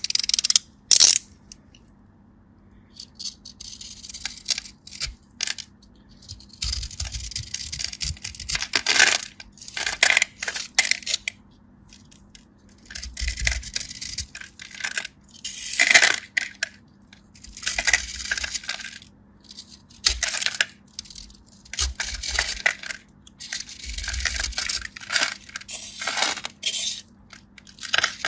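Dried kinetic sand clay being cracked and crumbled: crisp crackling crunches in repeated bursts every second or two, with sharp clicks in between.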